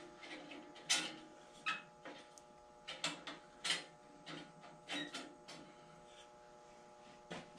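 Irregular light clicks and metallic taps as a new 3/8-inch bandsaw blade is worked into place on a Delta 14-inch cast iron bandsaw, about a dozen at uneven intervals, a few of them sharper than the rest.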